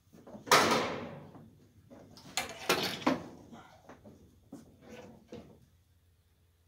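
Knocks and scraping on a wooden platform deck. A loud hit about half a second in fades over about a second, a cluster of sharper knocks follows around two to three seconds, and a few lighter knocks come near the end.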